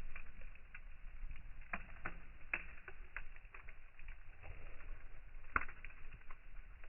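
Campfire wood crackling, with irregular sharp pops, a few louder than the rest, over a low steady rumble.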